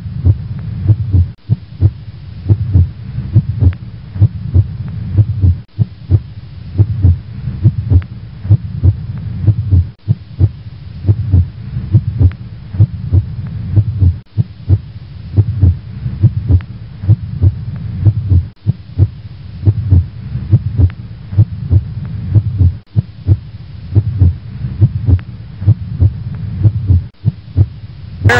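Heartbeat sound effect: a steady rhythm of low, heavy thuds with a low hum under them.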